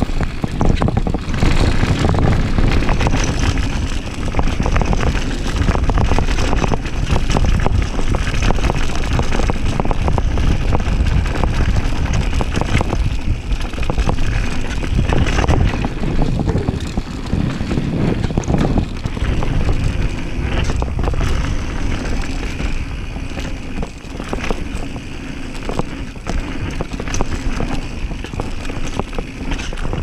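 Downhill mountain bike rolling fast down a dirt trail: wind rushing over the microphone, with the tyres on loose dirt and the bike's chain and parts rattling and knocking over bumps throughout.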